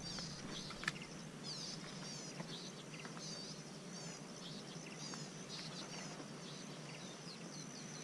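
Small birds chirping, short high calls repeated every second or so, over a steady high-pitched insect drone, with a single click about a second in.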